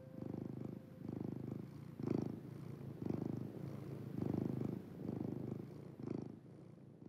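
A domestic cat purring steadily, each breath a separate swell, about one a second.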